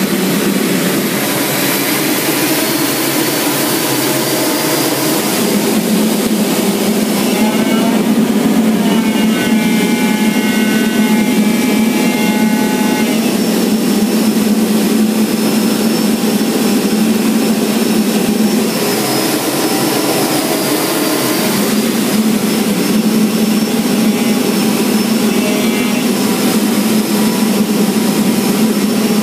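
T-45 Goshawk's Adour turbofan running steadily in flight, heard from inside the cockpit: a continuous drone with a thin high whine over it.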